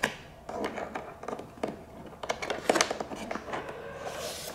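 Hands working a cable through the inside of an RC model jet's fuselage, past its fuel tank and tubing: irregular light clicks, taps and rubbing.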